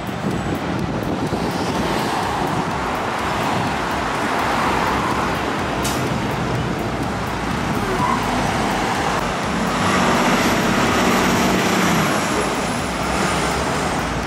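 Street traffic going by, with an MCI D45 CRT LE coach bus's engine passing close about ten seconds in and growing louder, then fading.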